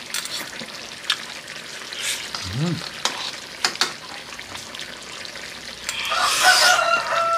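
A spoon clicks a few times against a plate or bowl during tasting, over a steady hiss, with a short hummed "mm" about two and a half seconds in. About six seconds in, a louder hiss with a steady high held tone comes in.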